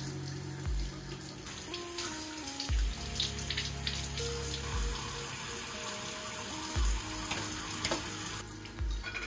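Kitchen tap running steadily into a sink while a small, doll-sized cloth garment is rinsed and worked by hand under the stream. The water sound is fullest through the middle and thins near the end.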